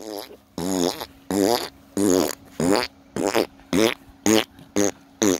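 A run of about nine short, rough-toned vocal calls, evenly spaced about half a second apart, each wavering in pitch.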